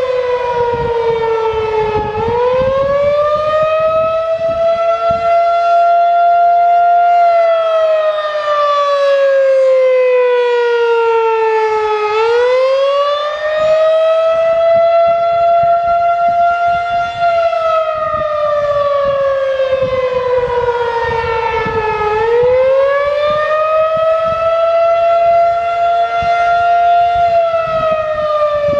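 Federal Signal 2001-SRN electromechanical outdoor warning siren sounding its attack signal: a loud wail that climbs quickly, holds high for a few seconds, then slides slowly back down, repeating about every ten seconds.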